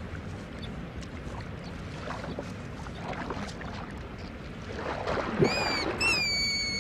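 Shallow stream water lapping and splashing as an animal moves through it, with louder splashing about five seconds in. Near the end come two high whistled calls, the second sliding down and then holding steady.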